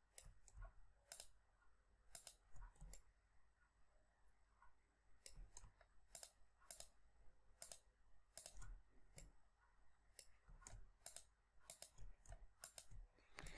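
Computer mouse clicking, faint, in a run of short, uneven clicks at about one to three a second: edges being selected one at a time with Ctrl-click.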